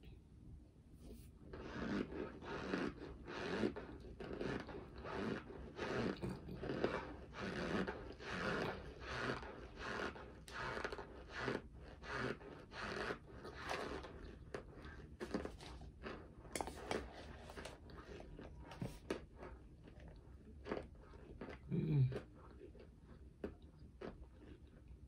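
A mouthful of dry cornstarch being chewed, at about two chews a second for some fifteen seconds, then in slower, spaced-out chews.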